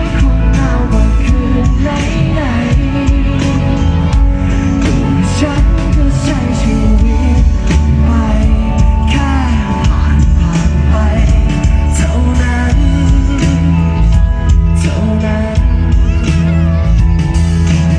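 Live rock band playing: a lead singer over drums, bass, electric guitar and synthesizer, with a steady beat.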